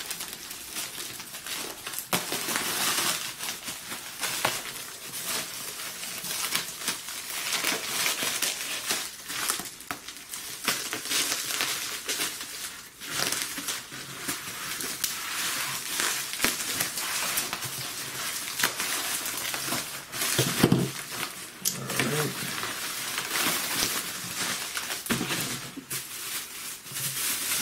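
Bubble wrap and plastic packaging crinkling and crackling while it is cut with scissors and pulled off a package by hand, then a plastic bag rustling as it is handled.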